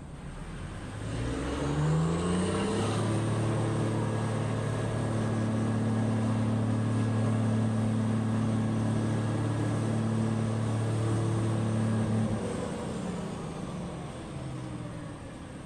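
Large diesel engine of heavy mining equipment revving up over the first couple of seconds, holding high revs steadily for about ten seconds, then dropping back and fading.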